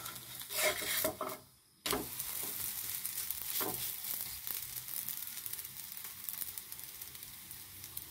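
Garlic naan sizzling in oil in a nonstick frying pan, a steady hiss that cuts out briefly about a second and a half in, with a few scrapes of a wooden spatula against the bread and pan.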